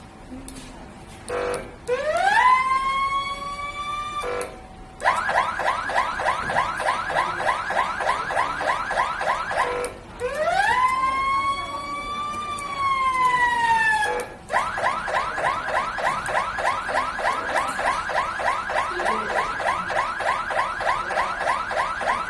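Electronic police siren switching between tones. A short blip is followed by a wail that rises and holds, then a fast yelp of several sweeps a second. The wail comes again, rising, holding and falling, before the fast yelp resumes.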